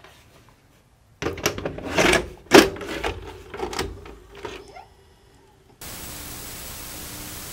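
A VHS video cassette recorder clicking and clunking for a few seconds as a tape loads into its mechanism. About six seconds in, a steady hiss of tape static begins.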